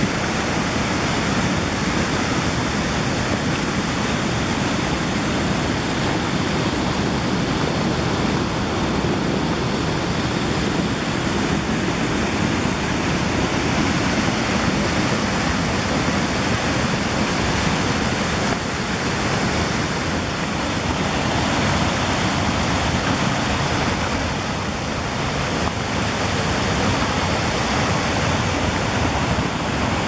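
Steady, loud rushing of a high waterfall with about a 100-metre vertical drop. The water is heard from close to the lip as it plunges into the gorge.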